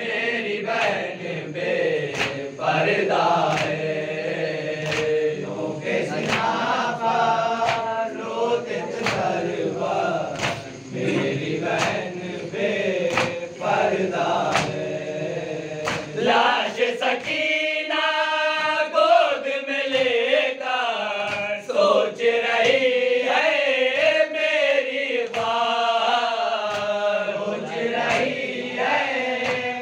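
Men's voices chanting a Shia noha (mourning lament) in unison, a lead reciter with the group chanting along, over rhythmic chest-beating (matam) slaps about once a second.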